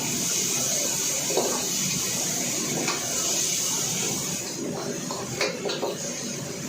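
Shredded chicken and sauce sizzling in a hot pan as it is stir-fried, a steady hiss that eases off about two-thirds of the way through. Near the end come a few sharp knocks against the pan.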